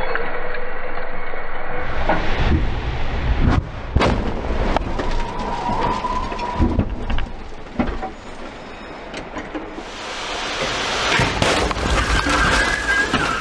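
Car crash-test impacts: a run of sharp crashes and crunches over a low rumble, then a loud rushing noise with many sharp cracks near the end.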